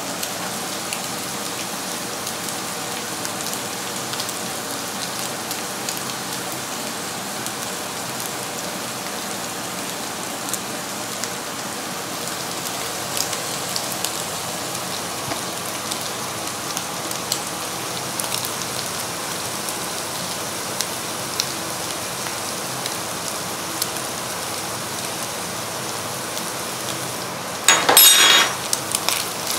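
Minced beef and onions frying in a pan: a steady sizzle with scattered small pops. A short, louder rustling scrape near the end.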